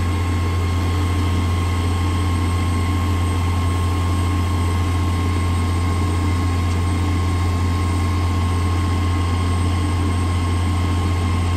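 Truck-mounted water well drilling rig running steadily while it reams the borehole with its air hammer: an even, loud drone with a strong low hum and a thin steady high whine over it.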